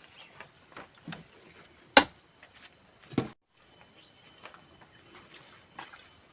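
Insects, crickets or similar, trilling as one steady high-pitched drone. A few sharp clicks or snaps cut through it: the loudest about two seconds in, another about a second later, and the sound drops out briefly right after.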